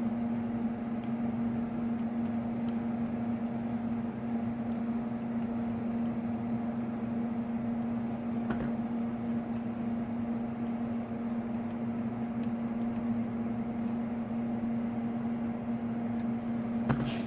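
Steady electric hum of a small motor, holding one constant tone throughout, with a few light metallic clicks near the end.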